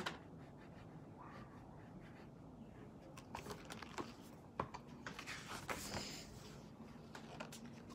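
Faint handling noises of a picture book being moved and its pages turned: a few soft clicks and short rustles from about three seconds in, over quiet room tone.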